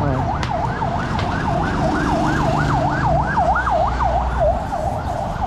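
Electronic siren in a fast yelp pattern, its pitch rising and falling about three to four times a second, dying away near the end.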